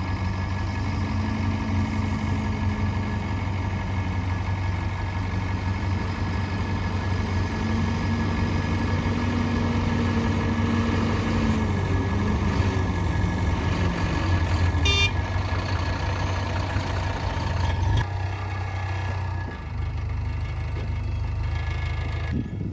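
Heavy diesel engine running steadily, with a brief high-pitched chirp about two-thirds of the way through and a sharp click shortly after, after which the engine note eases.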